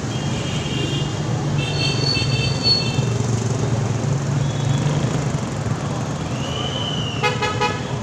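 Road traffic: cars and motorcycles passing on a wet street with a steady engine hum, and several short horn toots. Near the end, one louder and lower horn blast.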